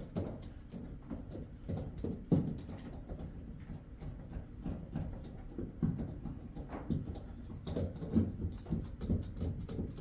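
Irregular clicks, taps and low knocks of hands and tools working sound-deadening mat onto the car's panels, a few louder knocks among them.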